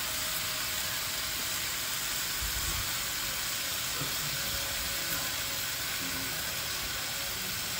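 Food sizzling steadily in a frying pan on the stove.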